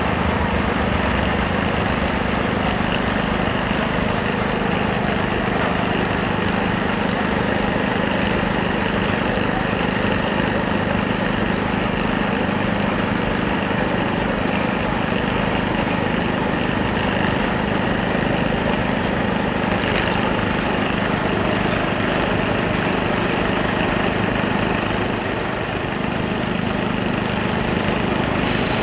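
Steady drone and rumble of a CSX intermodal freight train, its diesel locomotives pulling trailer and container cars across a steel truss bridge.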